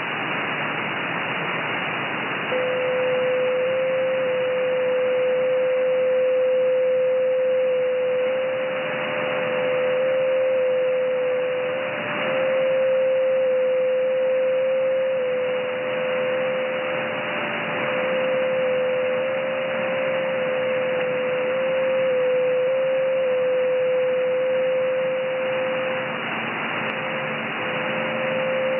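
Shortwave receiver in upper sideband on the 30 m amateur band: a steady hiss that swells and fades slowly. About two and a half seconds in, a clear whistle-like tone starts and hops in small pitch steps, the sound of a JT9 digital-mode transmission, with a fainter tone just above it; it briefly drops out near the end.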